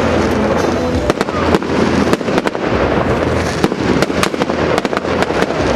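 Fireworks display going off continuously: many sharp cracks and bangs in quick succession over a dense crackling rumble.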